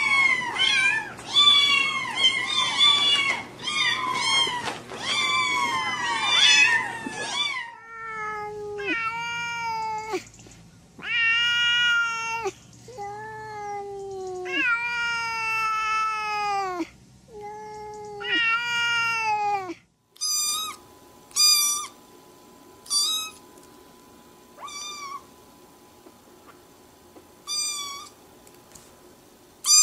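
Cats meowing. First several kittens meow over one another, then a single cat gives long, drawn-out meows that fall in pitch. From about two-thirds of the way through, a kitten gives short, high-pitched mews every second or two.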